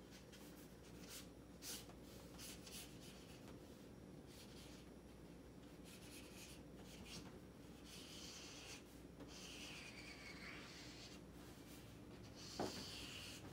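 Faint scratching of a felt-tip marker drawn across paper in short repeated strokes while sketching claws. A brief sharp sound comes near the end.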